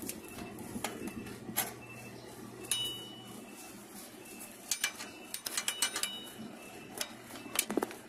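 Light metallic clicks and ticks from the adjuster of a Toyota Vios rear drum brake being worked by hand, backing off brake shoes that were set too tight and dragging on the drum. The clicks come one at a time, with a quick run of them in the middle and a couple more near the end.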